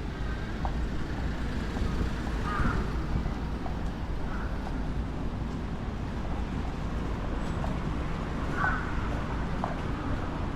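Town street ambience: a steady rumble of road traffic, with a few brief faint higher sounds over it.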